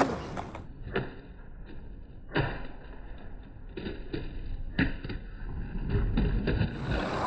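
Skateboard wheels rolling with a low rumble, broken by a series of sharp, muffled knocks from the board popping and landing. The two loudest knocks come about two and a half seconds apart.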